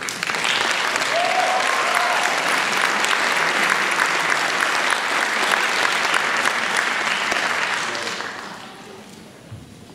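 Audience applauding, with a brief call from one voice about a second in; the applause fades away about eight seconds in.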